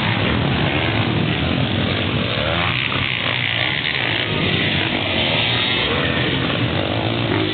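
Several motocross dirt bikes' engines running hard as riders race past, the pitch rising and falling as throttles open and close, with a rising rev about three seconds in.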